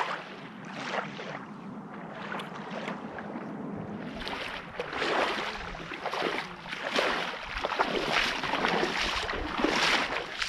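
Small sea waves lapping at the shore. From about four seconds in they are joined by splashes about once a second as a person wades out through shallow water.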